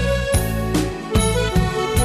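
Instrumental passage of a Thai song: sustained melody notes over a strong bass line and a steady beat, about two and a half beats a second, with no singing.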